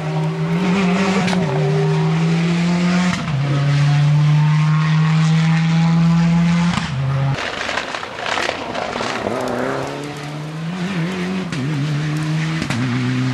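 Subaru Impreza rally car's turbocharged flat-four engine driven hard, holding a steady high note that steps up and down with gear changes. About seven seconds in the note drops away as it lifts off, with a few sharp crackles, and near the end a second rally car's engine comes in.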